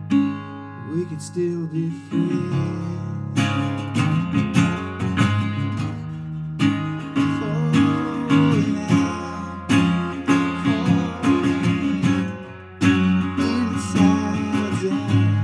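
Steel-bodied resonator guitar playing an acoustic blues instrumental passage, with sharp, regularly repeated chord strokes.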